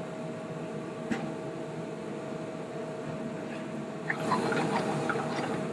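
Mushroom cream sauce simmering and bubbling in a pan over a gas burner, under a steady hum. About four seconds in it gets louder with handling noise as the pan is taken by its handle.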